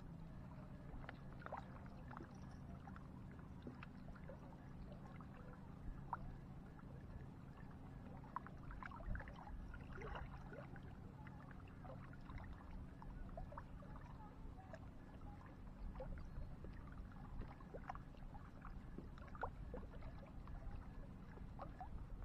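Small waves lapping and splashing against shoreline rocks, faint and irregular, over a low rumble of wind on the microphone.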